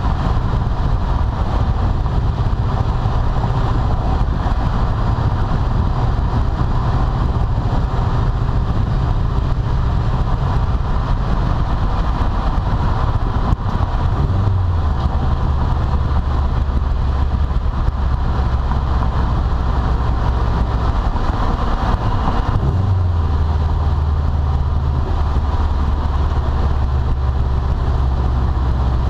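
2012 Subaru WRX's turbocharged flat-four running in gear with an aftermarket turboback exhaust, a steady low drone. The drone steps down in pitch about halfway through and again near the end.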